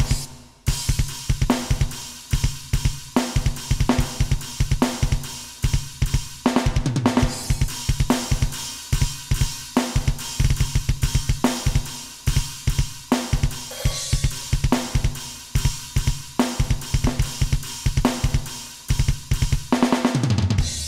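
Electronic drum kit (Alesis Nitro Mesh) triggering custom drum samples, recorded direct: rapid bursts of kick drum with snare and cymbal hits in a modern metal style. There is a brief break just after the start, and the playing stops near the end with the last hit ringing out.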